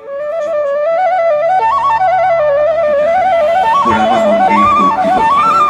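Background music: a solo melody that steps and ornaments its way up and down over a low held drone, with fuller accompaniment joining about three seconds in.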